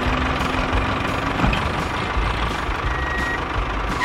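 An engine running steadily, a dense even mechanical noise.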